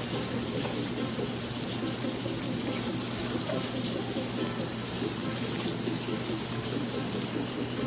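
Salmon croquettes frying in oil in a frying pan, a steady sizzle.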